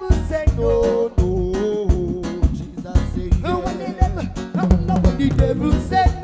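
Live band playing reggae, heard close to the drum kit: sticks striking drums and cymbals in a steady beat under bass and a melody line.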